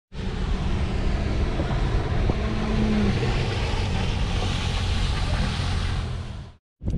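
Jet ski engine running as the craft carves a circle on open water: a steady drone with water spray, and a faint hum through the first half.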